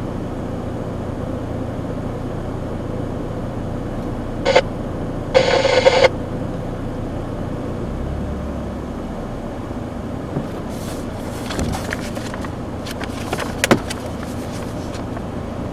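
Steady rumble inside a vehicle, with a click about four and a half seconds in, a short buzzy tone lasting under a second soon after, and several sharp clicks near the end.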